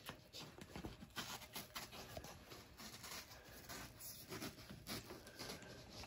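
Faint rustling and soft scuffs of gloved hands pressing a foam topper down onto a glued ATV seat base, a scatter of small ticks throughout.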